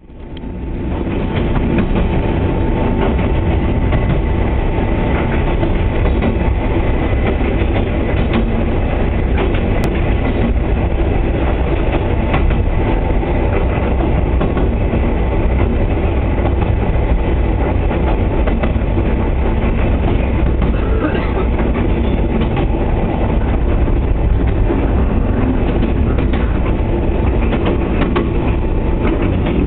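Steady rumble of a 24-series sleeper coach running through a tunnel, heard from inside the carriage, with a dense rattle of small clicks from the wheels and running gear. It fades in over the first second.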